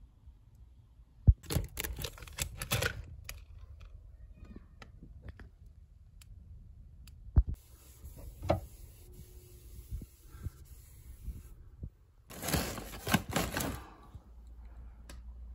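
Packets of cat treats and a cardboard box being handled and put away: two spells of rustling and clattering, one about a second in and one near the end, with scattered clicks and knocks between.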